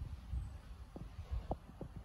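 Wind buffeting the microphone in low, irregular rumbling thumps, with a few sharper knocks around the middle.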